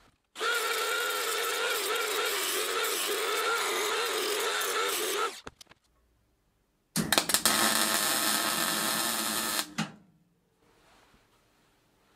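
Wire-feed (MIG) welder arc running in two bursts, one of about five seconds and then, after a short pause, one of about three seconds, as it welds a crack in a zinc-coated steel bicycle kickstand.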